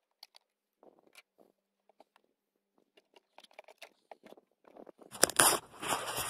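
Faint scattered plastic clicks and rustles as the plastic air filter box of a Mitsubishi Eclipse is worked loose and lifted out of the engine bay. About five seconds in, much louder rubbing and knocking starts: the camera being picked up and handled.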